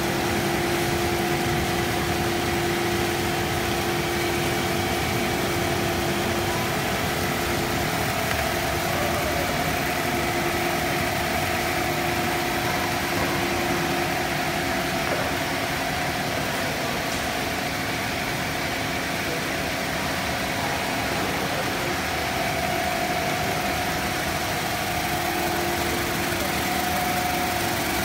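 Cast stretch film extrusion line running: a steady machine drone with a held hum from its motors and rollers as the film winds onto the roll.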